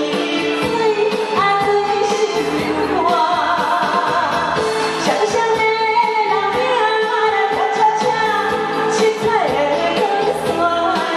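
A woman singing a cha-cha pop song into a handheld microphone over amplified instrumental accompaniment with a steady beat.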